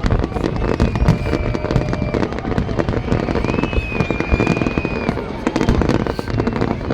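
Fireworks display: a dense, continuous crackle of rapid pops and bangs with heavier low booms mixed in, and a high steady whistle twice, from about half a second to two seconds in and from about three and a half to five seconds in.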